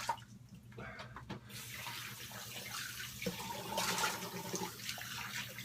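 Tap water running into a bathroom sink, starting up about a second and a half in and running steadily.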